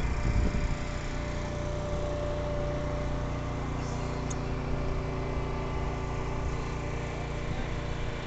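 An engine running steadily, a low hum with a set of even, unchanging tones over it. A brief low rumble comes right at the start.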